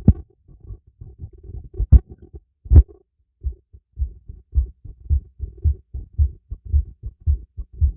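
Human heartbeat heard through a stethoscope, low thumps in a steady rhythm of about two a second, with a few sharp knocks near the start and about two and three seconds in.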